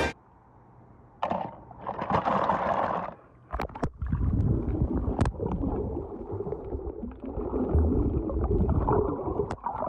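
Muffled gurgling and sloshing of lake water around a microphone held underwater, starting with a sudden splash about a second in as it goes under, with scattered sharp clicks and knocks.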